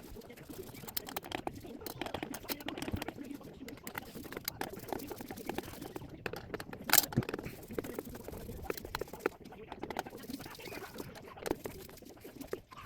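Scattered clicks, taps and knocks of hardware being handled while a CPU tower cooler is fitted, with one sharper knock about seven seconds in.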